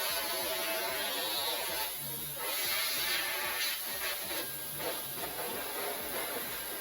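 Handheld electric air duster blowing a steady rush of air with a high hiss and buzz while dust is blown out of a PC case.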